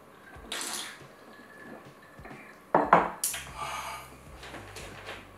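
A person drinking close to the microphone: sips and swallows of a drink, with a short hissy sound about half a second in and a louder one near the middle.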